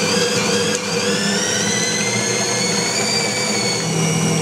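Benchtop stainless-steel bowl cutter running at speed, its blades chopping salted pork and beef mince with ice water into a smooth sausage emulsion. A steady motor whine with several high tones over a churning noise, the pitch creeping up slightly in the first second or so.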